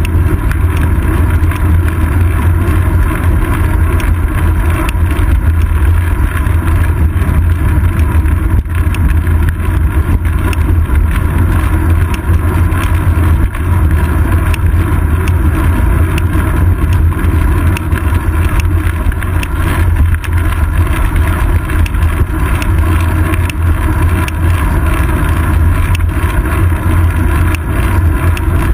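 Steady, loud wind rush and road rumble from a bicycle riding along, picked up by a GoPro Hero 2 mounted on the seat post. The low rumble is heaviest and is unbroken throughout.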